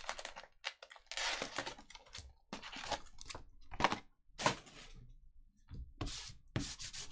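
Handling noise of foil trading-card packs and a cardboard card box: scattered short rustles, taps and clicks with quiet gaps. Near the end come a few rasping rubs of a sticky lint roller rolled over the rubber table mat.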